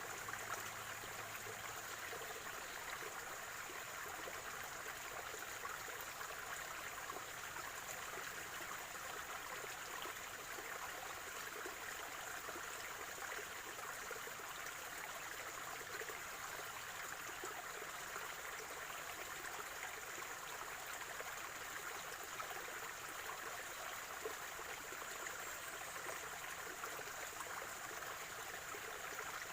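Water of a natural spring running in a small stream, a steady gurgling trickle.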